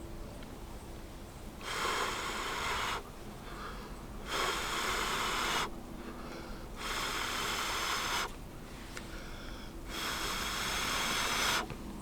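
A person blowing out air in four long puffs, each about a second and a half, with short pauses between them.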